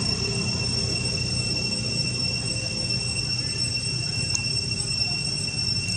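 A steady high-pitched drone held at one pitch, over a low rumble.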